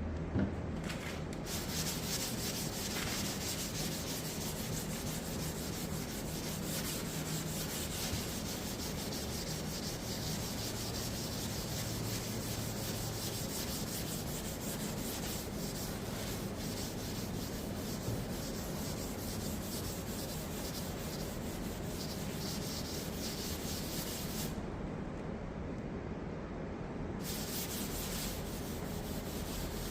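Maroon 3M abrasive pad wet with mineral spirits scrubbing over a stripped wooden dresser top, lifting the leftover gummy stripper residue. The scrubbing stops for a couple of seconds near the end, then starts again.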